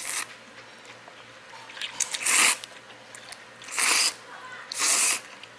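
Jjamppong noodles in spicy broth being slurped: a short slurp at the start, then three longer noisy slurps, the loudest about two seconds in.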